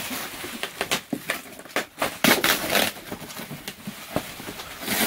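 A cardboard shipping box being handled and opened by hand: irregular rustling, crackling and knocks, with the densest rustle about two seconds in.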